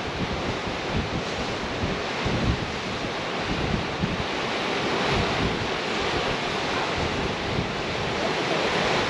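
Sea surf washing steadily against the shore, with wind buffeting the microphone.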